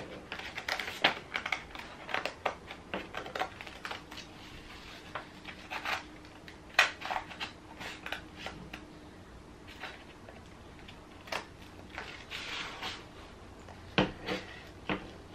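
Scissors snipping through printer paper in short, irregular cuts, with the sheet rustling as it is turned and handled.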